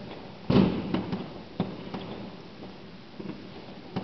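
New Year's fireworks going off: one loud bang about half a second in, with a short echo, followed by scattered smaller pops and cracks.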